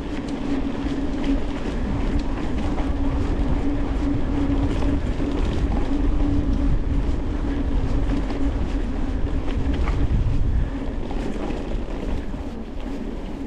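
Mountain bike rolling fast over a forest trail: a continuous rumble of tyres on rough ground with rattling and clicking from the bike, over a steady hum. The low rumble drops away about ten seconds in.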